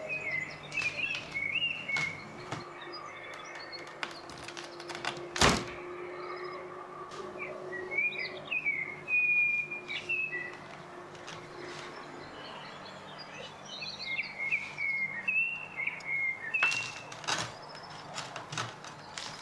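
A songbird singing in short chirping, warbled phrases, three spells of song, with one sharp knock about five seconds in.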